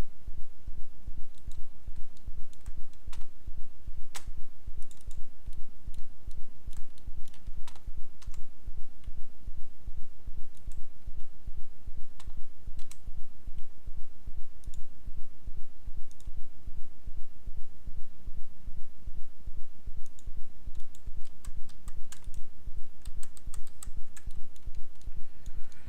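Scattered computer mouse clicks and keyboard taps over a steady low hum that pulses about three times a second.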